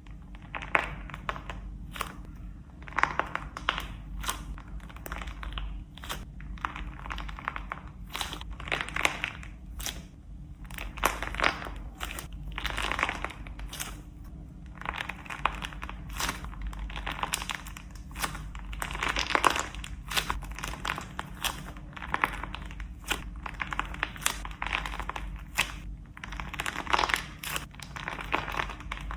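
Slime being squeezed and worked by hand, crackling with many sharp pops and clicks among recurring stretches of crinkly noise.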